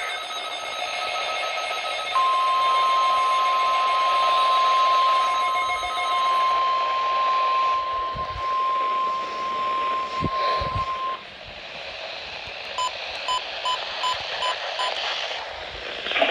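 Weather radio sounding the NOAA Weather Radio warning alarm tone, a single steady high tone held for about nine seconds over radio hiss, marking a test of the warning alarm. A couple of seconds after it stops comes a run of short, evenly spaced beeps.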